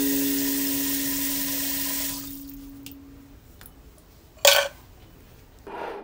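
Water running from a kitchen faucet into a metal cooker pot of meat, shut off about two seconds in. A few faint clicks follow, then one short, loud noise about four and a half seconds in.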